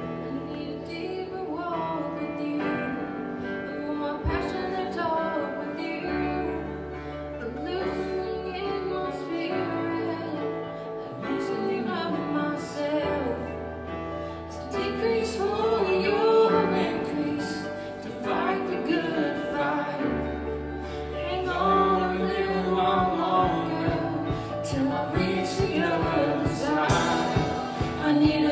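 Live worship music: women singing a slow worship song into microphones over a small band led by keyboard, with long held bass notes underneath.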